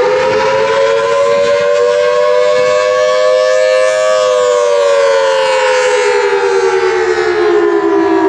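Federal Signal Thunderbolt 1003 dual-tone outdoor warning siren sounding the attack signal, the tornado warning wail. Its two close tones rise to a peak about four seconds in, then slowly fall.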